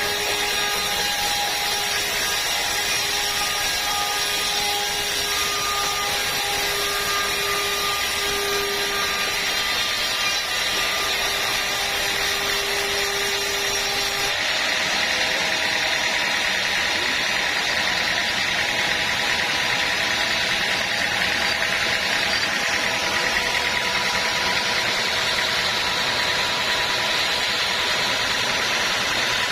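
Sawmill machinery running steadily, a saw working through wood with a mechanical whine; the sound changes abruptly about halfway through.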